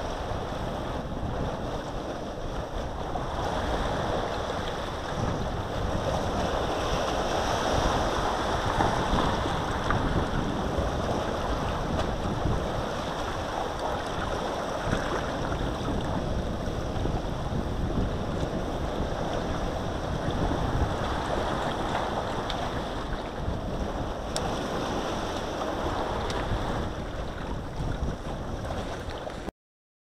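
Sea waves washing onto a shore, rising and falling every few seconds, with wind rumbling on the microphone. The sound cuts off suddenly near the end.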